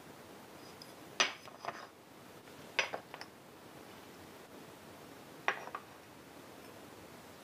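White ceramic dishes set down on a kitchen countertop: three short clinks about a second, three seconds and five and a half seconds in, each followed by a smaller knock, over a low room hiss.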